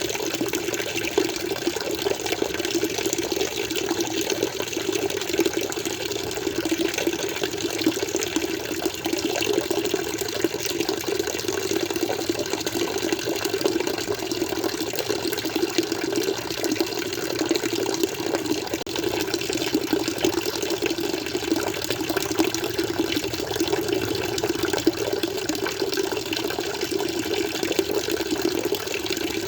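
Water flowing steadily, an unbroken splashing and running with no pauses or changes.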